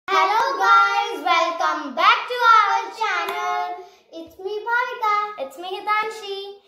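Young girls singing a sing-song greeting, with long, gliding notes and a short pause about four seconds in.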